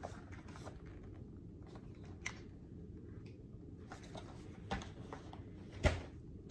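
Quiet handling of a boxed pair of insoles: light rustles and scattered taps of the cardboard-and-plastic package, with a sharper knock near the end.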